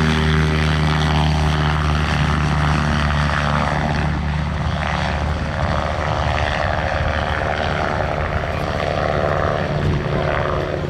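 Light propeller aircraft engine running with a steady, unchanging drone.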